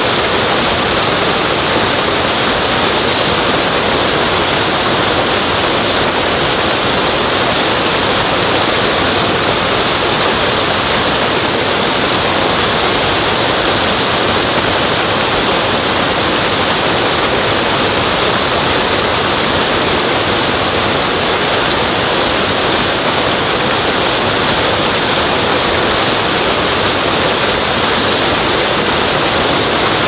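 Waterfall rushing steadily: an even, unbroken hiss and splash of falling water that holds the same level throughout.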